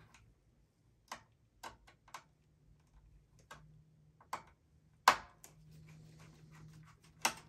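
A mini Phillips screwdriver clicking and tapping at the tiny screw on a desktop motherboard's wireless card: about seven short, separate clicks spread out, the sharpest about five seconds in, with a faint low hum under the second half.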